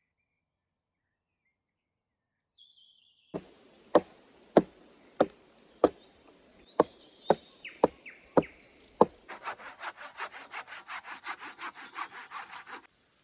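Axe blows into wood, about ten sharp chops a little over half a second apart. They are followed by quick, rhythmic hand-saw strokes through a log, about seven a second, which stop suddenly.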